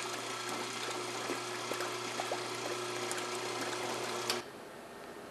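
Electric pump of a fryer-oil filtrator running with a steady hum while filtered hot oil pours back into the fryer with a liquid hiss and splash. The pump cuts off suddenly about four seconds in as it is switched off.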